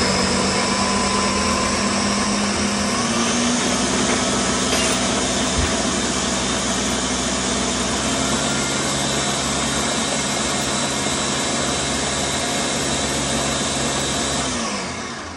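Countertop blender running steadily on its puree setting, blending chopped peppers and greens into sofrito. The motor winds down near the end.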